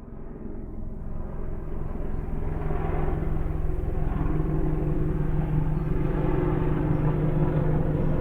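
A steady engine rumble with a constant low hum that fades in over the first couple of seconds.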